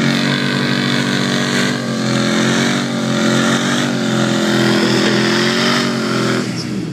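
Dodge Ram 1500 pickup's V8 engine held at high revs while its tyres spin in place on wet grass, going nowhere. The revs waver slightly, then drop away near the end.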